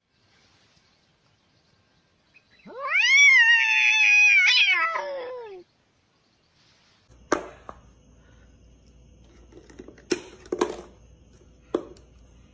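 A domestic cat's single long meow, about three seconds, rising at the start, held, and falling away at the end. Later come a few sharp knocks or taps over a faint hiss.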